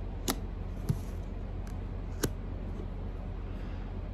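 Oracle cards being handled on a table: three light clicks spread over a few seconds, over a steady low hum.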